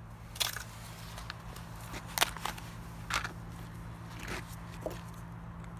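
Crinkling and crackling of the packaging around a replacement turn-signal bulb being torn open, in about six short, sharp crackles.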